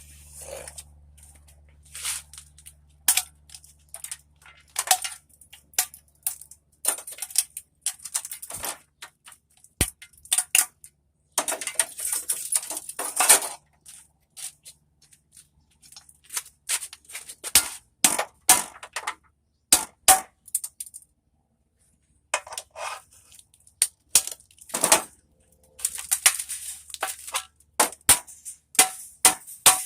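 Hand tools clanking and clinking against metal as a scrap electric motor is taken apart: irregular sharp knocks, with a denser run of clatter around twelve seconds in.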